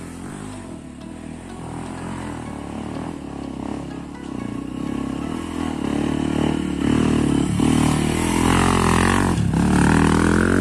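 Off-road motorcycle engine running under throttle on a steep dirt climb, getting steadily louder over the first several seconds. Its revs swing up and down sharply about eight to ten seconds in.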